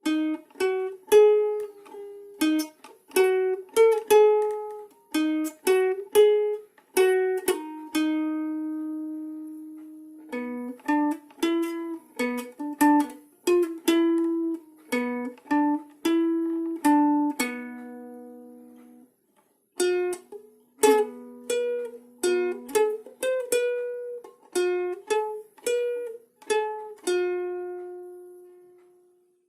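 Instrumental music on a plucked string instrument: a melody of single plucked notes, each ringing out and fading, with a brief pause about two-thirds of the way through and a long last note that dies away near the end.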